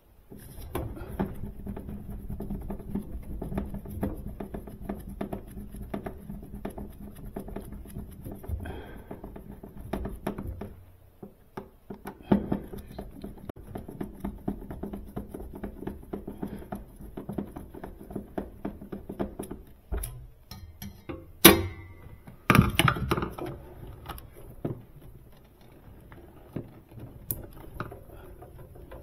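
Small clicks, taps and knocks of hand tools and metal parts being worked on a refrigerator's condenser fan motor assembly, over a faint steady low hum. A sharp, loud knock comes a little past twenty seconds in, followed by a brief run of louder clatter.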